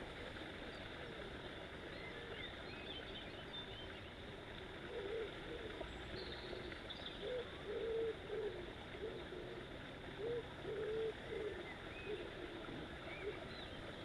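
A pigeon cooing: a run of low coos starting about five seconds in and lasting several seconds. Small birds chirp faintly throughout.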